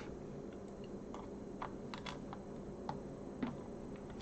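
Scattered light clicks and taps, about ten at irregular intervals, from handling the Sinclair QL's loosened keyboard and plastic case.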